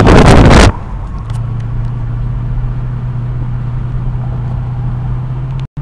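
Loud wind buffeting on the microphone through an open car window cuts off abruptly under a second in. It leaves a steady low engine drone heard from inside the car's cabin while cruising. A split-second gap in the sound comes near the end, after which the drone returns a little higher.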